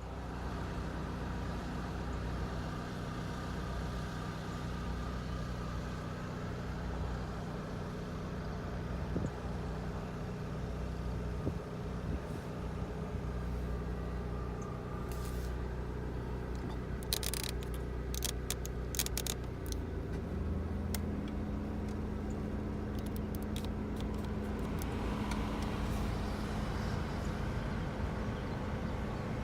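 Mitsubishi Delica D:5 running with its air conditioning on: a steady mechanical hum that steps up in pitch about two-thirds through and holds there, with a few clusters of sharp clicks along the way.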